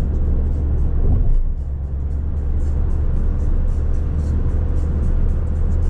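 Background music with a steady beat over the low, steady rumble of a car driving.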